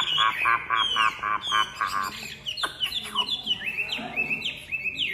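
Chinese hwamei singing. It opens with a fast run of repeated notes, about five a second, then about two seconds in turns to a series of clear whistles, each swooping down in pitch.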